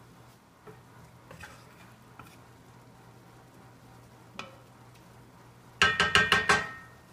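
Wooden spatula stirring food in a cast iron skillet with faint scrapes. Near the end it taps rapidly against the skillet, about six quick ringing knocks in under a second.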